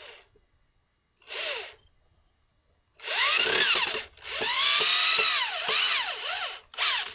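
Power drill driving stainless steel machine screws into a maple board, the motor speeding up and slowing down in spurts: a short trigger pull, a run of about a second, then a longer run of a couple of seconds.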